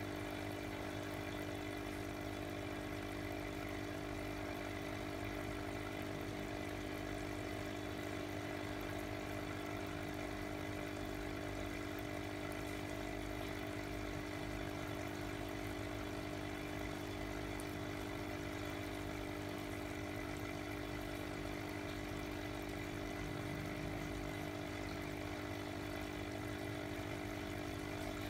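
Aquarium air pump humming steadily, with air bubbling up through the water of the fishbowl.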